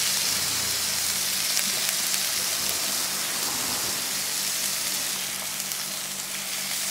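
Threadfin bream fillets sizzling in hot oil in a frying pan: a steady crackling hiss that eases slightly near the end.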